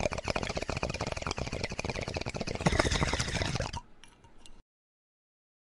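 Logo-intro sound effect: a fast run of dense ticking and clattering clicks that stops abruptly almost four seconds in, trails off faintly and then cuts to dead silence.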